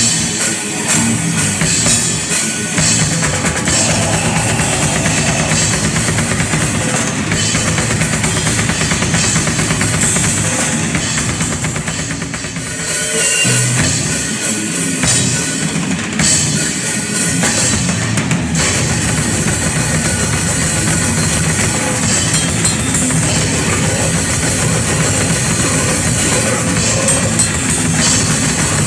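Rock band playing live, heard from right beside the drum kit: the drums, bass drum and cymbals are loudest over the rest of the band. The music briefly drops in level about twelve seconds in, then comes back at full strength.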